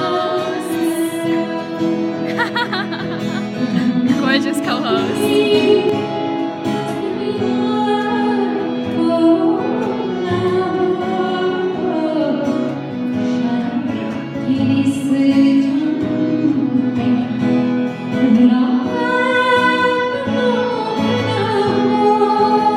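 A woman singing into a microphone through the hall's sound system, holding long notes that waver in pitch.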